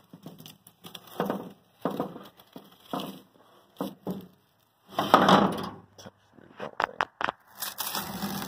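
Blue painter's tape being peeled off the chrome of a freshly spray-painted truck grille in a series of short ripping pulls, the longest and loudest about five seconds in.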